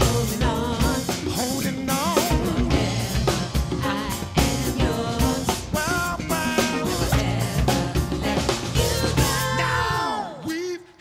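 Live gospel band playing: drum kit, bass guitar and grand piano, with vocal runs bending up and down in pitch over the top. Near the end the music falls away in a downward slide and drops out briefly.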